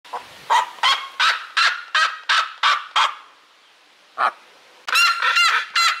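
Red-legged seriema screaming: a run of about eight loud, sharp notes, a short pause with a single note, then a faster run of ringing notes near the end.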